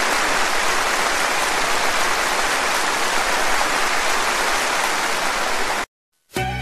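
Audience applauding, a dense steady clapping that cuts off abruptly near the end; after a brief silence, music starts.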